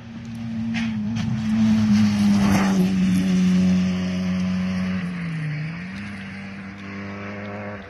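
Peugeot 106 XSI rally car engine running hard at high, steady revs as the car goes by on the stage, loudest about two to four seconds in. The revs dip briefly and pick up again about five and a half seconds in, then the sound fades as the car draws away.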